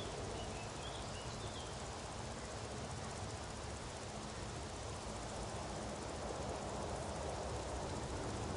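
Outdoor meadow ambience: a steady, even rushing noise with a low rumble beneath it, and a few faint high chirps in the first second and a half.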